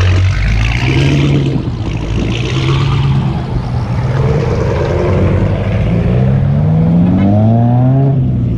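A car engine running, its note climbing steadily through the last few seconds as it accelerates, then breaking off just before the end.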